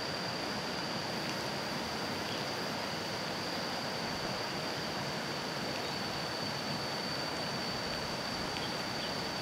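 Steady rush of river water running over a rocky riffle, with a steady high-pitched insect whine above it.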